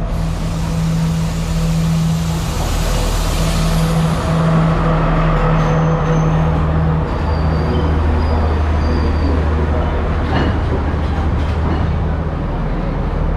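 Diesel train arriving at a platform: the power car's engine drones steadily, dropping to a lower note about seven seconds in as the train slows to a stop. There are brief high brake squeals and a single clunk near the end.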